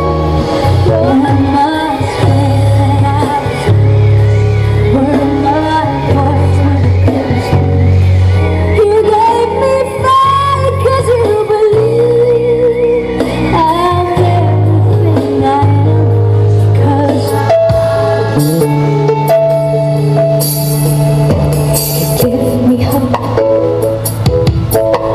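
A song with a singer and heavy sustained bass played loud through a mid-high speaker box on test, heard from about ten meters away.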